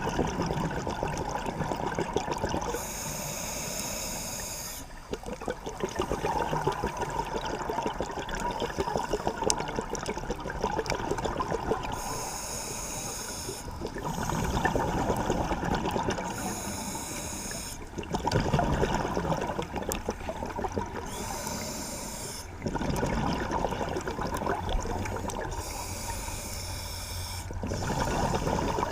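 Scuba diver breathing through a regulator underwater: short hissing inhalations alternate with longer bubbling exhalations, about five breaths in all.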